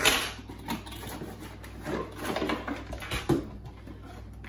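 Unpacking noises: a cardboard box and a plastic electric hand mixer being handled and set down on a kitchen worktop. There are scattered light knocks and rustles, the loudest one at the very start.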